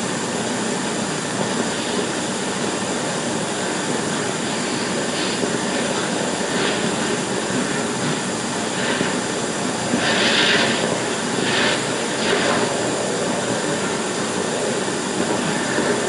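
Steady rushing noise on an old 16mm film soundtrack, with a few short hissing bursts between about five and thirteen seconds in.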